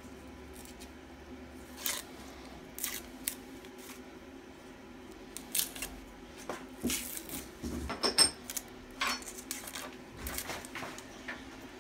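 A kitchen knife peeling an onion: short, crisp scrapes and crackles as the dry papery skin is cut and pulled away. They come at irregular intervals, the loudest about eight seconds in.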